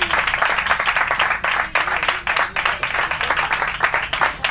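A small group applauding: dense, steady clapping that keeps going throughout.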